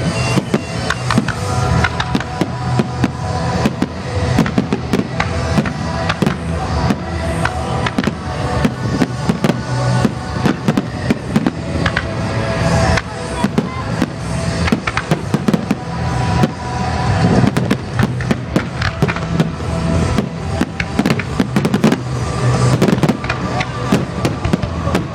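Aerial firework shells bursting in rapid succession, a dense run of bangs and crackling with no let-up, with music playing underneath.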